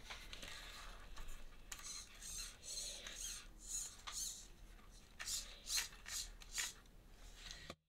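Hands handling a small 3D-printed plastic robot arm fitted with SG90 micro servos: irregular scraping and rubbing of the plastic parts and wires, with some sharper clicks. It cuts off abruptly near the end.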